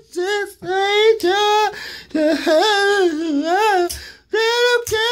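A man's high falsetto voice in a sing-song church-praise chant, holding long notes that bend up and down, with short breaths between phrases and a brief pause about four seconds in. It is a put-on voice impersonating an older church woman.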